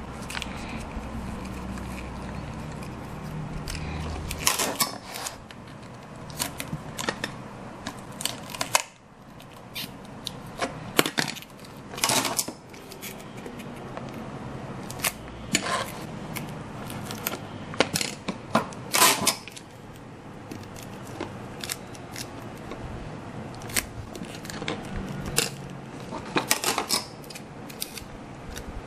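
Hands working on a handmade paper model ship: irregular clicks, taps and short rustling snips of paper, card and small tools being handled. A low hum runs under the first few seconds.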